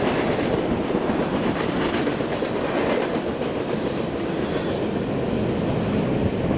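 Freight train cars, empty centerbeam flatcars and a boxcar, rolling past at speed: a steady rumble with clatter of steel wheels on the rails. The last car goes by about five seconds in.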